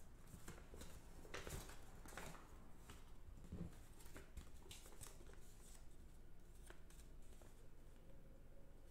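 Faint rustling and crinkling of a folded paper sheet being handled, opened out and refolded, in short scattered crackles.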